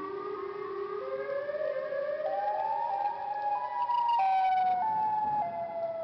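Siren Head monster sound effect: a siren-like wail of several tones sounding together, climbing in small steps for about four seconds, then stepping slowly back down.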